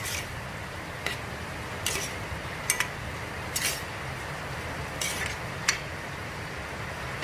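A metal ladle stirs a wet stew of diced chicken gizzards and liver in a stainless steel pot, clinking and scraping against the pot's side and bottom about once a second, over a steady low rumble.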